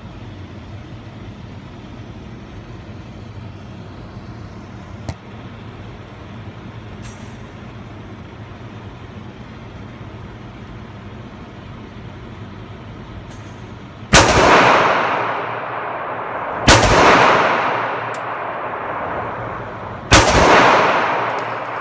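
Three gunshots, the second about two and a half seconds after the first and the third about three and a half seconds later, each with a long echoing tail. Before them, a steady low background hum.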